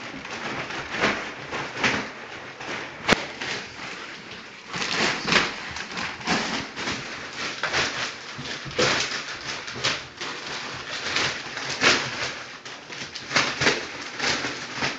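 Plastic wrapping and brown paper packaging crinkling and tearing as a springer spaniel pulls and chews at it, in a continuous irregular rustle with a sharp click about three seconds in.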